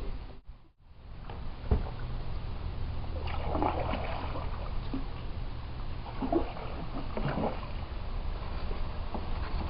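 Kayak paddles dipping and splashing in river water, a few strokes heard over a steady low rumble, with one sharp knock about two seconds in.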